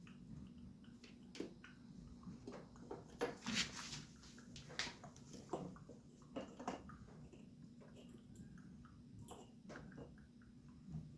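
Scattered clicks and light knocks of parts and tools being handled during motorcycle reassembly, busiest in the middle, over a steady low hum.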